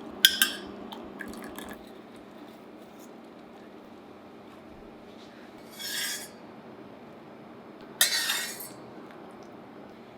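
Tableware being handled while the agedashi tofu is plated: a sharp knock and a few light clinks in the first two seconds, then two short scraping sounds about six and eight seconds in.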